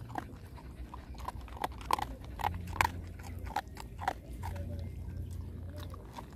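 A dog eating dry kibble from a metal bowl, with irregular sharp crunches at about two a second as it chews. A low steady rumble runs underneath.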